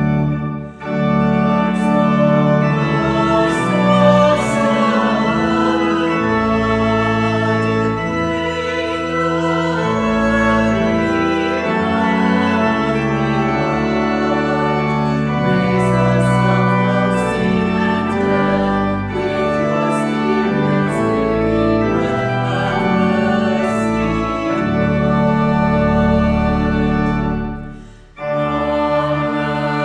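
Organ playing slow, sustained chords, with a brief break about a second in and a longer pause near the end before it carries on.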